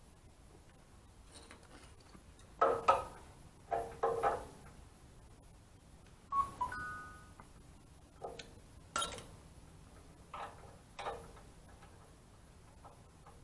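Metal tools and parts clinking and knocking against each other, a series of sharp ringing knocks at irregular intervals of about a second, with a brief two-tone electronic beep about six and a half seconds in.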